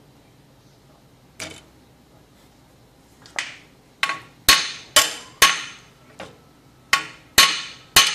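Sharp metal-on-metal knocks on steel clamps and workpiece, each with a brief ring. There is about ten in all: one on its own about a second and a half in, another at three and a half seconds, then a run of them roughly two a second from about four seconds on.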